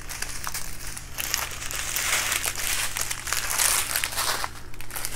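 Small clear plastic bags of diamond-painting rhinestone drills crinkling as they are handled. The crinkling is strongest from about a second in until shortly before the end.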